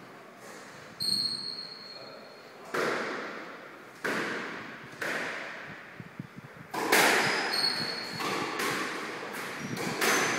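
Squash rally: the ball smacking off rackets and the court walls hit after hit, about once a second, each with an echo, the loudest about seven seconds in. Shoes squeak sharply on the court floor twice, near the start and about halfway through.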